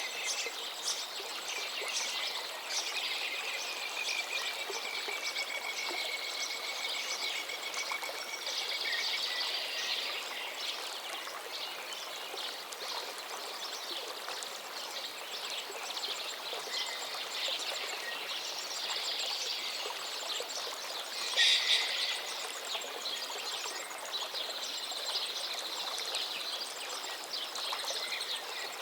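A river flowing steadily, with birds calling and singing over it; one bird call stands out louder about three quarters of the way through.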